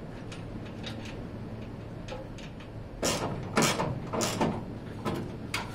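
Fuel filler neck and its rubber hose being worked into place through the car's body panel: small clicks and taps, then about three seconds in four loud scraping and rubbing strokes, and a sharp click near the end.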